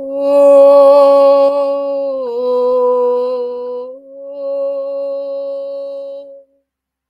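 A woman chanting a wordless vowel in long held notes, like a mantra. Her pitch steps up at the start and drops a little about two seconds in. After a brief break near four seconds she holds a last note, which stops about six seconds in.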